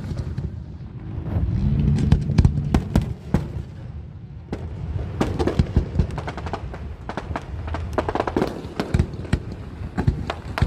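Firecrackers going off in a rapid, irregular string of sharp cracks, thickest in the second half, with voices of a crowd underneath.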